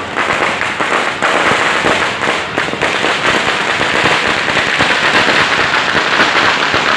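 Many firecrackers and fireworks going off together, a dense, continuous crackle of countless overlapping pops and bangs with no break.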